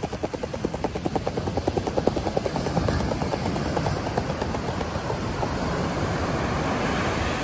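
Fishing reel being cranked to wind in the line, a fast even clicking of about ten a second that fades out after about three seconds. Steady surf and wind run underneath.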